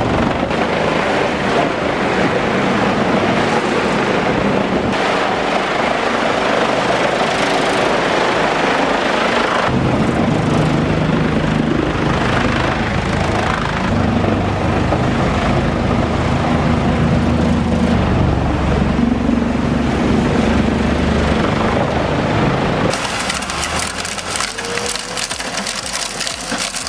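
Morbark whole-tree chipper driven by a Cat C27 V12 diesel, running loud and steady under load as it chips dry spruce. The engine note shifts a couple of times. About four seconds before the end the sound turns thinner, with sharp crackles.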